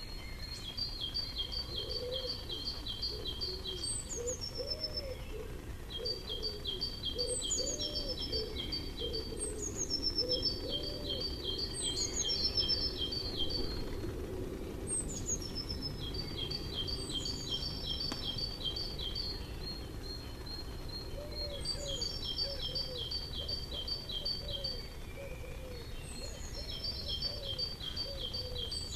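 Songbird singing the same phrase over and over, about every two to three seconds: a few falling high notes running into a fast, even trill. Fainter, much lower bird calls come in short runs near the start and again in the last third.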